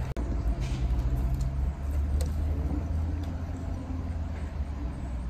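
Low, steady rumble of a motor vehicle engine running nearby, with a faint hum held through it.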